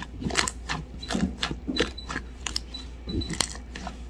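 Crystal Mud slime being squeezed and kneaded by hand, popping and crackling in an irregular string of sharp clicks, about four a second.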